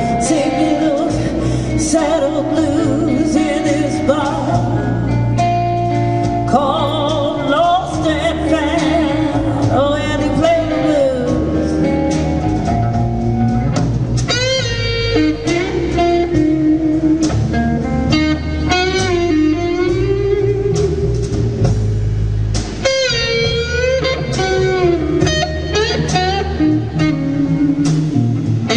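Live blues band playing an instrumental break: a Les Paul-style electric guitar solos with string bends over bass and drums.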